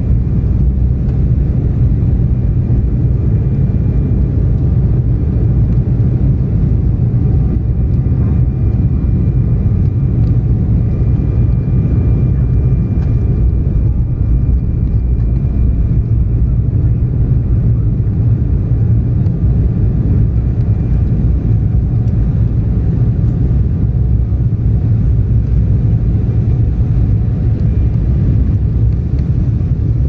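Steady jet airliner cabin noise from engines and airflow, heard from a window seat by the wing: a constant low rumble with a faint steady whine above it.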